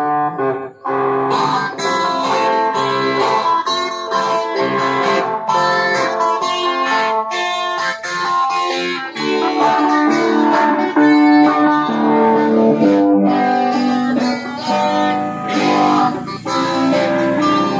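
Two electric guitars played together through small portable amplifiers, a run of picked melody notes over lower sustained notes, with a brief break about a second in.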